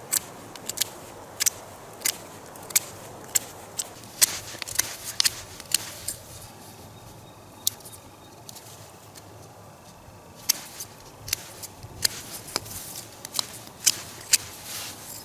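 Irregular sharp clicks and snaps, about two a second, with a lull of a few seconds in the middle.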